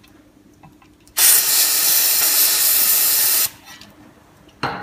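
Aerosol spray can sprayed at a brake caliper's bleeder nipple: one steady hiss of about two seconds that starts and stops sharply. A short knock follows near the end.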